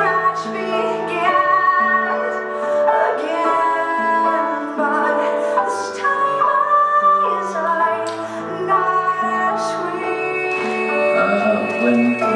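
Color guard show music played over loudspeakers in a gym: a slow piece with held chords over a stepping bass line and a woman singing.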